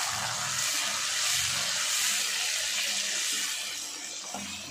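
Tomato purée and chopped onions sizzling in hot oil in a steel pan, a steady hiss that eases off a little near the end.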